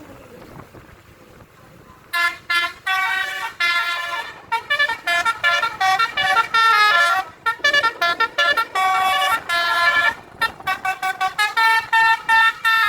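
Indonesian bus 'telolet' multi-tone air horn (basuri) playing a tune in quick, choppy notes, starting about two seconds in.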